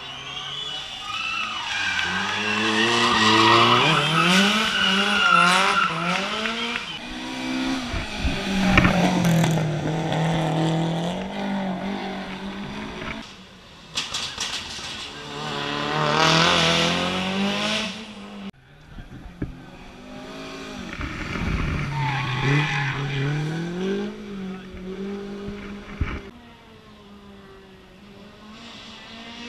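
Race car engine revving hard up the hillclimb course, its pitch climbing and dropping back again and again with gear changes and corners. Tyres squeal at times.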